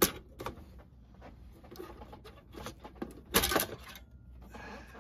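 Plastic clicks and rattles as the roof of a G scale model caboose is worked loose and lifted off its body: a sharp click at the start, a few light ticks, then a louder clatter a little past three seconds in.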